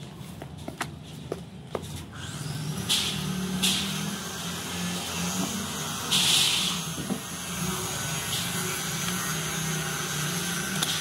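A motor hums steadily from about two seconds in, with a few short hissing scrapes, the loudest about six seconds in. Before the hum, light clicks of a knife on a wooden chopping block.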